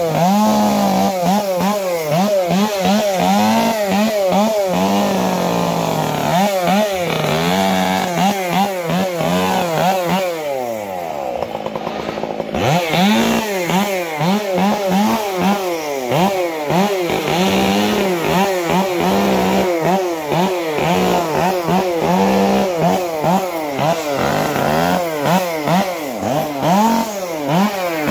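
Two-stroke chainsaw running and revving, its engine pitch rising and falling about every second, easing off briefly about eleven seconds in.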